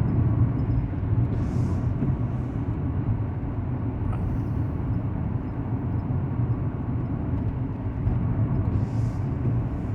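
Steady low rumble of a truck's engine and tyre noise heard from inside the cab while cruising on a highway, with a couple of faint short hisses.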